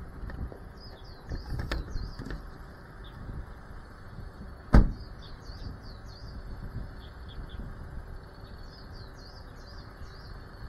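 Small birds chirping repeatedly in short calls, with rustling handling noise in the first couple of seconds and one sharp knock a little under halfway through.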